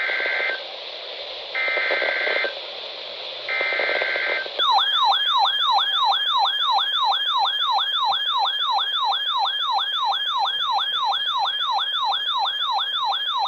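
Emergency Alert System data header: three short bursts of shrill digital warble about two seconds apart over hiss. About four and a half seconds in, a loud siren-like alert tone starts, sweeping upward in pitch about two and a half times a second.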